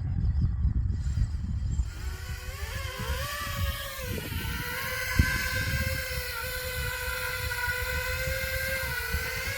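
5-inch FPV quadcopter's motors and propellers whining, rising in pitch a few seconds in and then holding steady, over wind rumble on the microphone.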